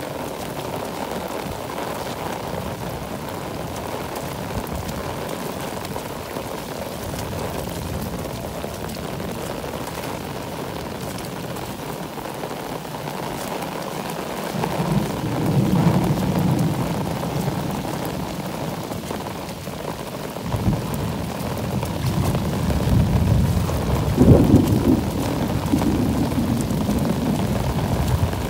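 Heavy rain pouring steadily on a flooded road. About halfway through, low rumbles of thunder roll in and swell twice, the louder one near the end.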